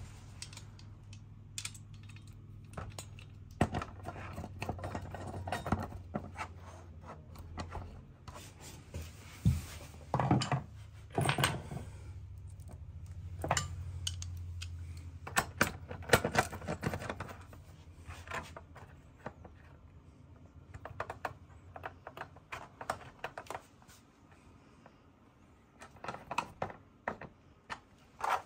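Small metal clicks and clinks from a hand screwdriver, steel bolts and a TV wall-mount bracket as the bracket is screwed onto the back of a TV, in scattered irregular bursts.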